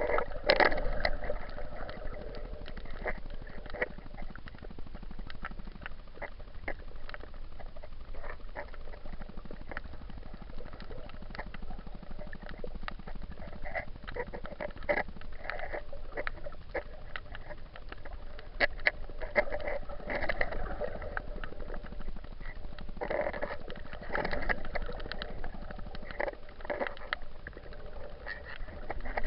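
Muffled water movement and splashing with many scattered clicks and knocks, heard through an action camera's waterproof housing while snorkeling.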